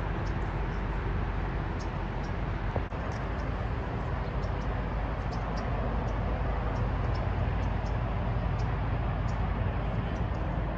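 Steady outdoor background noise with a low rumble, over which short high chirps come and go throughout. The noise drops briefly about three seconds in.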